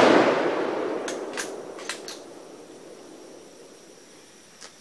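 Rolling echo of a rifle shot dying away over about three seconds, with a few faint sharp ticks between one and two seconds in.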